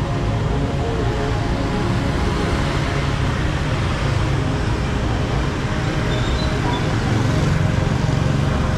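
Steady street traffic noise with people's voices mixed in.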